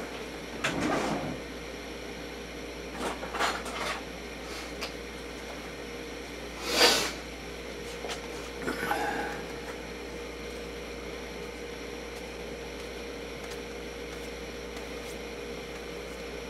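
Scattered handling noises as a vinyl record and its box are moved about by hand: a few short rustles and soft knocks, the loudest a sharp knock about seven seconds in. A steady faint hum runs underneath, and the second half holds only the hum.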